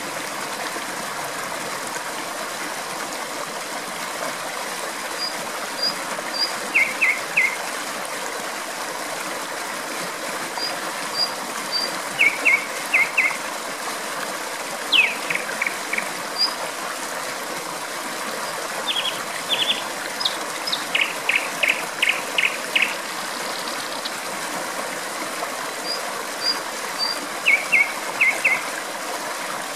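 Steady rush of flowing stream water, with a nightingale singing short phrases of quickly repeated notes every few seconds, one with a falling whistle.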